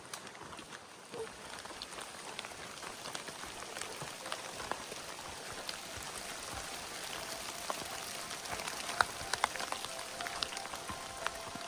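Rain falling steadily, with many separate drops ticking sharply close by; it grows a little louder as it goes.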